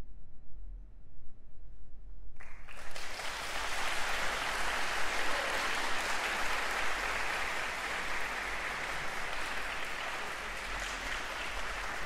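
Audience applause that breaks out about two and a half seconds in, after a short hush, and keeps going steadily.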